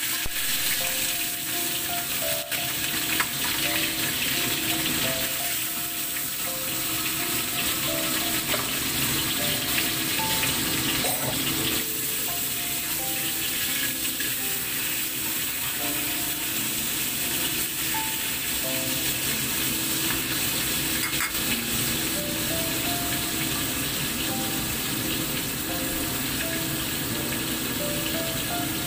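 Fish frying in hot oil in a wok: a steady sizzle, with a few knocks of the spatula against the pan.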